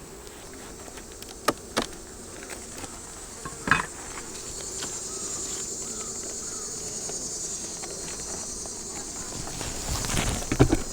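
Insects buzzing steadily around an opened honey bee hive, with a high-pitched insect chirring that swells about halfway through. A few sharp clicks early on and a cluster of knocks near the end come from wooden hive parts being handled as the honey super is lifted off.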